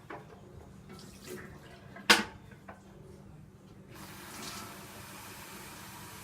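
A sharp plastic click about two seconds in, then water pouring steadily into the Tchibo Cafissimo coffee machine's water tank from about four seconds on.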